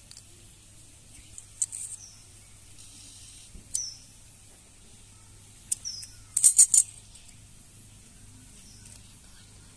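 Metal scissors snipping in sharp clicks every couple of seconds, with a quick run of about four snips a little over six seconds in.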